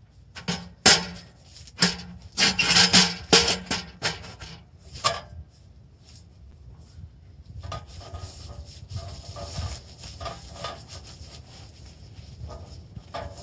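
A run of sharp knocks and scrapes over the first five seconds or so, then softer, steady rustling and scraping.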